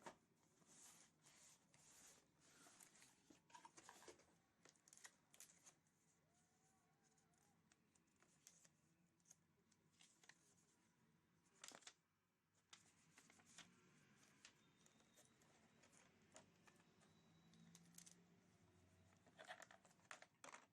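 Near silence with faint, scattered handling noises: irregular scratches, rustles and clicks.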